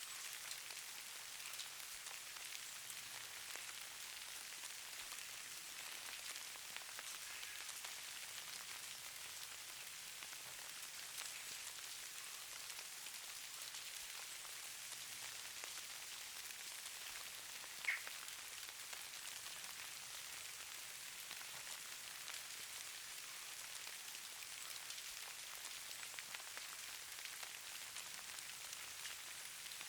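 Steady fine patter of falling precipitation on a surface, a dense hiss of countless tiny ticks, with one sharper, louder tick about eighteen seconds in.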